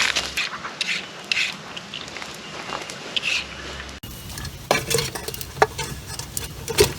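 Cooking sounds: metal utensils clinking and scraping against pots and pans, with scattered sharp clicks and an abrupt change about four seconds in.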